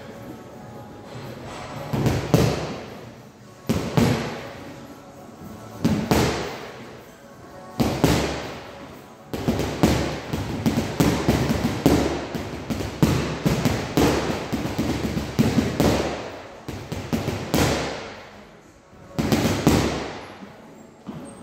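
Boxing gloves punching a hanging heavy bag, each hit a sharp thud with an echo from the hall. Single punches come about every two seconds, then a fast flurry of combinations from about nine seconds in to about eighteen, with one more hit near the end.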